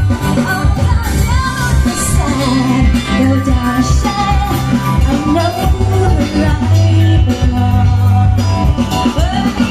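Live rock band playing a song, with a singer's voice over bass and drums.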